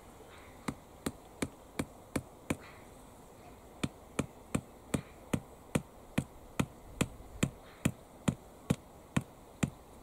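A hand hammer striking the top of a wooden stake, driving it into garden soil: five quick blows, a short pause, then about fifteen more at a steady two to three a second.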